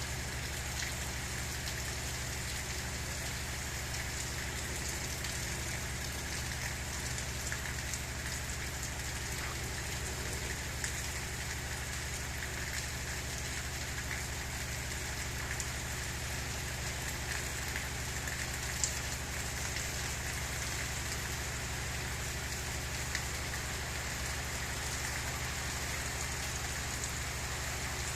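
Gentle rain falling steadily, with a few louder single drops standing out now and then.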